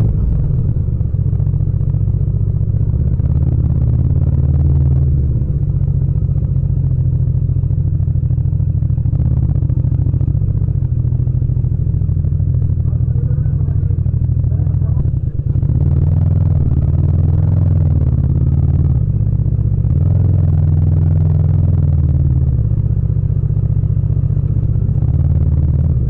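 Yamaha MT-07's parallel-twin engine running at low revs as the bike rolls slowly, its note stepping up and down with small throttle changes a few times, with a brief dip about fifteen seconds in.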